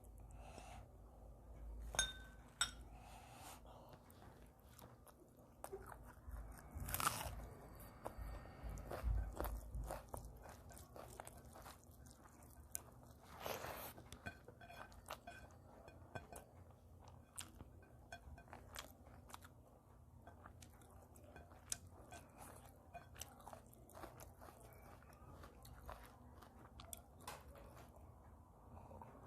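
A person chewing and biting food close to the microphone: many small wet mouth clicks, with a few louder crunchy bites about 7 and 13 seconds in.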